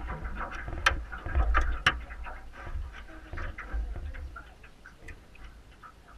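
Spinning reels clicking as line is cranked in, an irregular run of small ticks with two sharper clicks about one and two seconds in. A low rumble under the first couple of seconds, fading as the clicks grow fainter.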